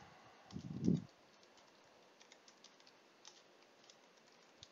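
Computer keyboard being typed on, faint, sparse key clicks as a line of text is entered. A short low sound just under a second in is the loudest thing.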